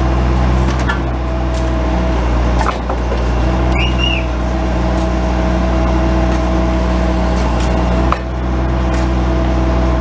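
Bobcat S185 turbo diesel skid steer's engine running steadily under a constant whine while the 911 backhoe attachment's hydraulics work the boom and bucket. The sound dips briefly with a knock twice, and there is a short high squeak near the middle.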